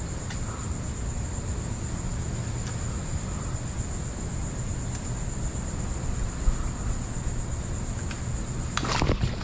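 Steady high-pitched chorus of insects droning without a break over a low rumbling background; the insect sound cuts off suddenly near the end.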